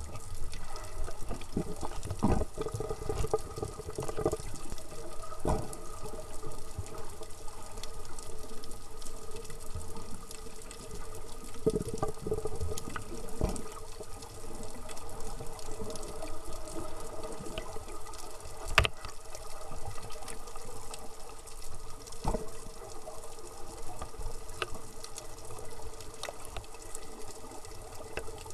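Muffled underwater sound: a steady hum with several steady tones, broken every few seconds by short low rushing bursts, and a single sharp click about two-thirds of the way through.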